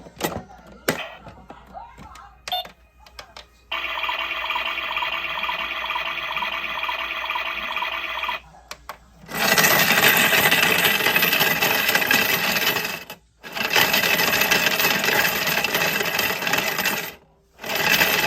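Ddolddoli toy washing machine washing coins: a few clicks, then its small motor whirring steadily, then from about nine seconds in loud rattling of coins tumbling in the spinning drum. The rattling stops briefly twice and starts again.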